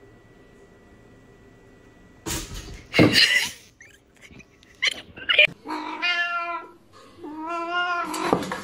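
A cat meowing: two long drawn-out meows in the second half. These follow two short, loud noisy sounds about two and three seconds in, after a nearly quiet start with a faint steady whine.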